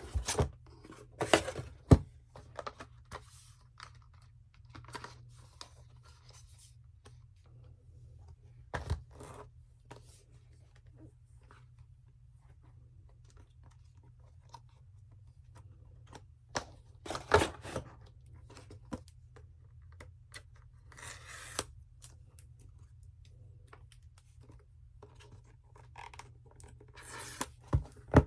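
Apple Watch cardboard packaging being opened by hand: paper tear strips ripping and cardboard scraping and tapping, in a few short bursts with quiet gaps between them.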